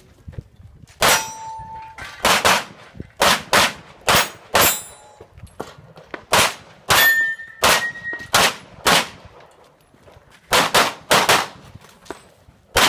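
Handgun shots fired in quick pairs during a USPSA practical-shooting stage, about eighteen shots in all. After a few hits a steel target rings briefly with a clear tone.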